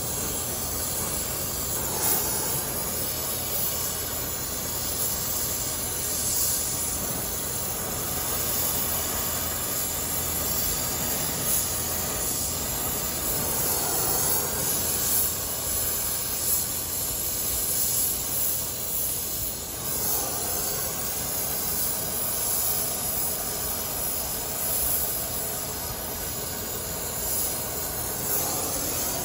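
Oxy-acetylene brazing torch flame hissing steadily as it heats a copper refrigerant-line fitting for brazing.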